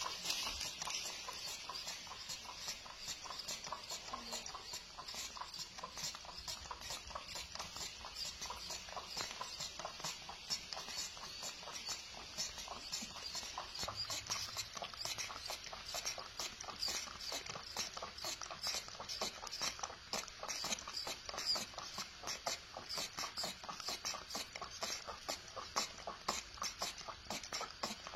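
Pet monkeys drinking milk, making a steady run of quick wet sucking and smacking clicks, several a second.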